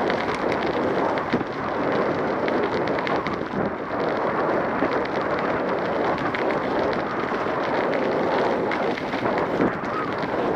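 Steady wind rumble on the microphone of a bicycle-mounted camera while riding, with small rattles and knocks scattered through it from the bike and mount going over the street surface.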